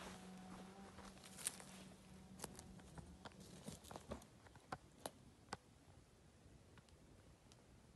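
Near silence, with a few faint scattered clicks and a faint low hum that fades out about three and a half seconds in.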